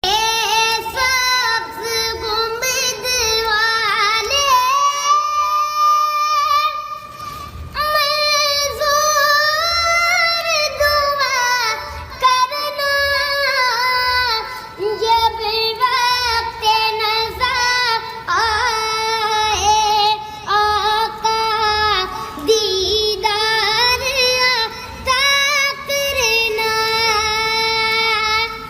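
A high solo voice singing an Islamic devotional hamd, a melismatic melody with wavering ornamented notes, over a soft steady low beat.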